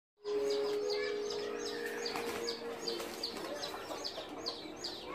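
A flock of chickens calling. A long, low, held note sounds through the first three seconds, over a quick steady run of short, high, falling chirps, about four or five a second.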